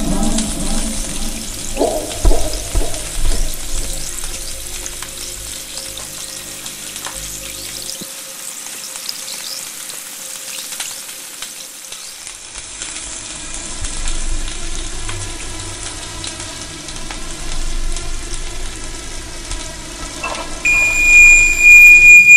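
A fizzing, crackling sizzle made of many fine ticks, with a faint drone underneath; a steady high tone comes in near the end.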